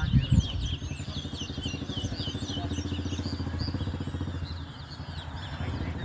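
Caged towa towa finches singing in a run of quick, high chirping notes. Under them a motorcycle engine idles with an even pulse, the loudest sound, fading out about four and a half seconds in.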